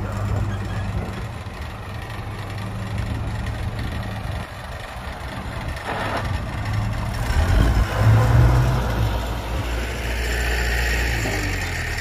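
Diesel engines of a dump truck and a small crawler bulldozer running with a low, steady rumble that swells louder around eight seconds in.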